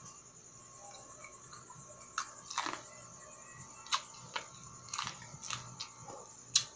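Biting kernels off a cob of cooked sweet corn with chewing: after a quiet first couple of seconds, a string of about seven sharp crunchy bites, the loudest near the end.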